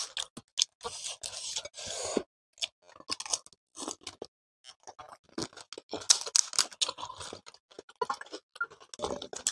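Crisp panipuri shells cracking and crunching as they are poked open and bitten, with close-miked chewing, in a quick irregular run of sharp crackles.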